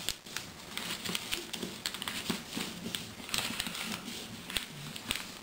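A sheet of paper being rolled over in narrow folds along one edge and pressed flat by hand against a tabletop: soft rustling with many small, irregular clicks and taps.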